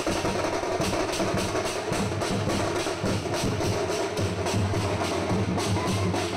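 Loud, percussion-heavy music: a quick, steady drum beat driving a dancing celebration.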